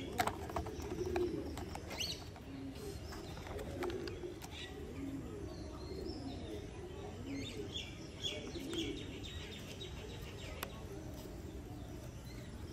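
Pigeons cooing steadily in the background with small birds chirping, over a few sharp clicks of plastic as screws are driven into a toy motorbike's wheels.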